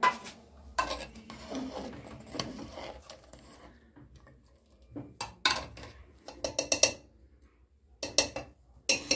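Steel ladle stirring curry in a metal pressure cooker, knocking and scraping against the pot's sides, with a quick run of clinks about seven seconds in.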